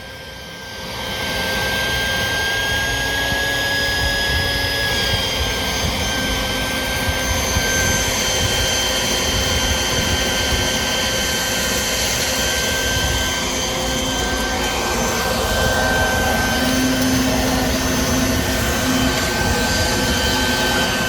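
A motor starts, spins up over about a second and a half, then runs steadily with a high whine over a rushing noise.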